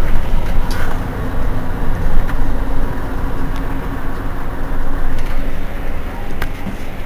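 Mercedes-Benz Citaro C2 city bus standing with its engine idling: a steady low rumble and hum that drops a little in level about a second in.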